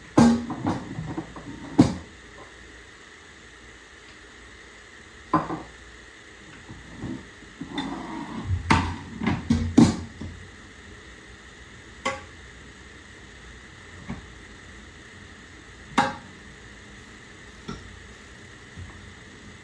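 Kitchen handling sounds while food is prepared for an air fryer: scattered knocks and clatter of items being set down and moved, busiest in the first two seconds and again around the middle, then single knocks every couple of seconds over a steady low hum.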